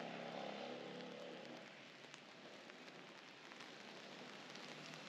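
Light rain falling steadily on wet pavement, with scattered small drip ticks. A low hum fades out about a second and a half in.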